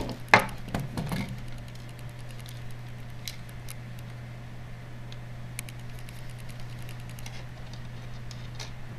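Small plastic clicks and knocks as a BlackBerry Curve 8520 handset and its parts are handled and prised apart on a tabletop. There is a sharp knock about a third of a second in, a few more in the first second, then scattered light clicks, over a steady low hum.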